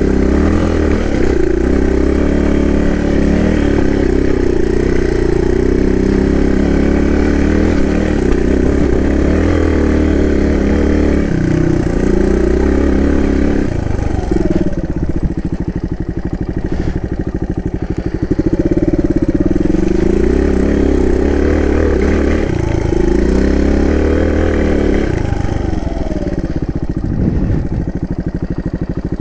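Suzuki DR200's single-cylinder four-stroke engine running while being ridden, its revs rising and falling as the throttle opens and closes. About halfway through there is a lower, quieter stretch where the separate firing pulses can be heard.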